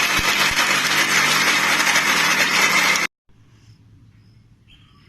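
Kitchen mixer grinder running at speed, grinding peanuts, coconut, coriander, curd and green chillies into coconut chutney; it stops abruptly about three seconds in.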